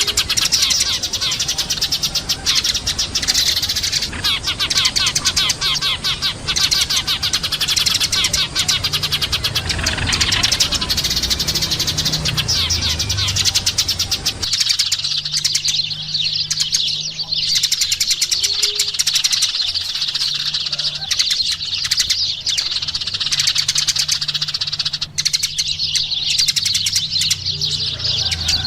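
A flock of Eurasian tree sparrows chirping continuously in a dense, overlapping chatter, with a steady low hum underneath.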